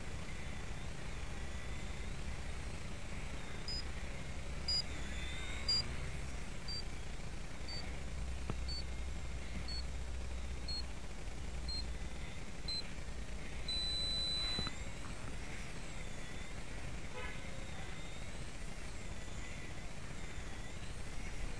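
Blade Nano CP X micro collective-pitch RC helicopter flying at a distance, its faint whine wavering with the manoeuvres. Over it come ten short high electronic beeps about a second apart, then one long beep of about a second.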